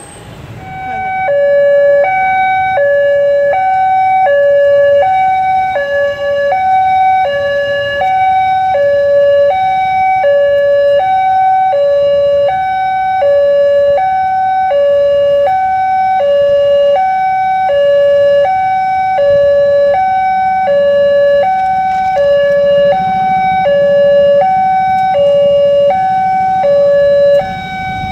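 Railway level-crossing warning alarm, an electronic two-tone signal alternating high and low about once a second, starting about a second in; it warns that a train is approaching while the barrier is down. Road traffic runs faintly underneath.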